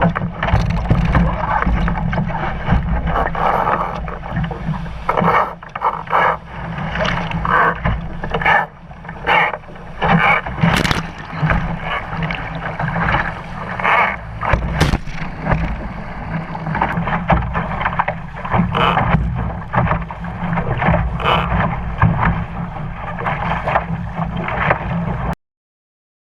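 Water sloshing and slapping irregularly against the hull of an RS Aero sailing dinghy under way, with many short splashes. The sound cuts off suddenly near the end.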